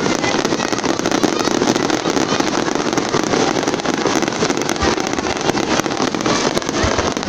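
Fireworks display: a dense, continuous barrage of crackling and popping, with no single bang standing out and a few low thuds near the end.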